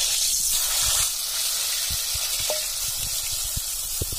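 Hot oil sizzling with light crackling pops as whole peeled potatoes are added and fry.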